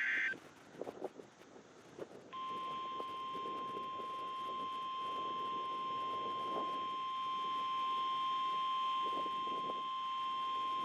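NOAA Weather Radio's 1050 Hz warning alarm tone during the weekly test. It is one steady, unbroken beep that starts about two seconds in and holds at a constant pitch. Just before it, at the very start, the last burst of the warbling digital SAME header cuts off.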